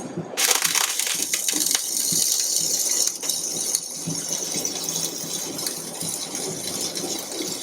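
Flux-cored wire arc welding: the welding arc starts about half a second in and keeps up a steady crackle and sizzle as a bead is run over earlier passes on 6 mm plate.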